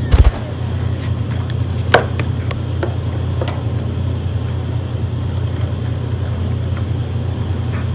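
Steady low hum with a few sharp plastic clicks and knocks, the loudest at the very start and about two seconds in: a cordless handheld vacuum and its attachments being handled after the motor has been switched off.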